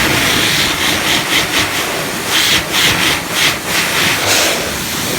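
2800W pet grooming blower dryer running, a loud rush of air that swells and pulses in repeated gusts.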